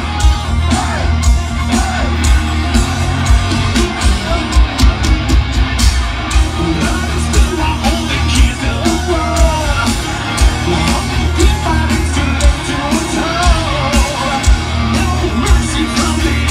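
Heavy metal band playing live through a large outdoor PA: distorted guitars, bass and heavy drums with a sung lead vocal, and the crowd shouting along.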